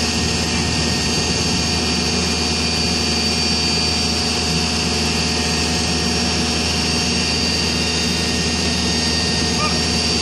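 Backhoe's diesel engine running steadily, with a steady high-pitched whine above it.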